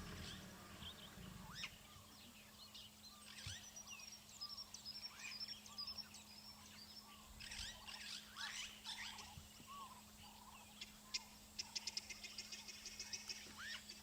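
Helmeted guineafowls giving harsh alarm calls among scattered bird chirps. Near the end the calls turn into a fast, even rattling chatter of about four a second.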